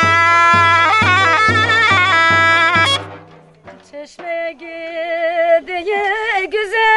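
Instrumental music with a steady drum beat, about two and a half beats a second, that cuts off suddenly about three seconds in. About a second later a woman starts singing unaccompanied, holding long wavering notes at the opening of a Turkish folk song.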